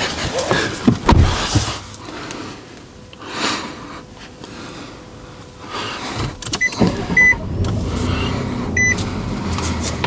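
Someone climbing into a Nissan Frontier pickup with a few knocks and rustles, then its V6 engine starting about seven seconds in and running with a steady low hum. A dashboard warning chime beeps a few times over it.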